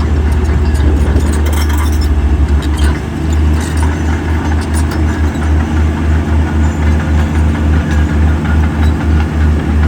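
Heavy earthmoving machine's diesel engine running with a deep, regular throb, with a spell of rattling in the first few seconds.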